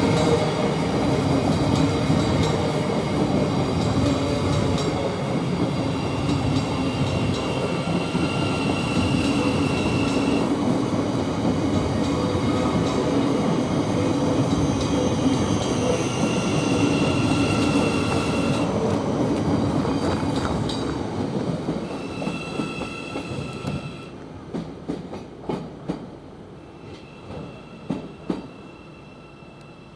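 Thameslink Class 700 electric multiple unit running into the platform: steady rumble of wheels on rail, with a high tone that comes and goes. The noise dies away about twenty seconds in as the train slows and stops, leaving a few scattered knocks and clicks.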